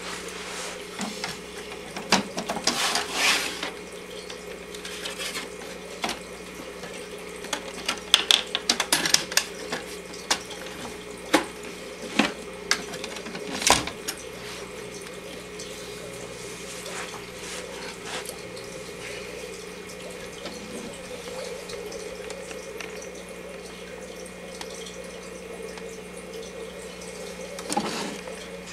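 Plastic clicks, knocks and rattles as a hand handles the cover and hinged front panel of a Technicolor Showcase Magnetic 2000MC Super 8 cartridge projector, over a steady low hum. The clatter comes in short clusters, the sharpest click about a third of the way through, then settles to the hum alone.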